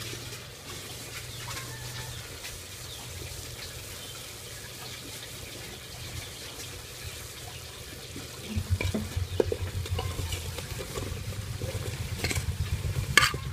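Frog meat and curry paste sizzling in an aluminium pot over a charcoal stove, with a low rumble joining about two-thirds of the way through. Near the end, sliced luffa gourd is tipped into the pot with a few sharp knocks.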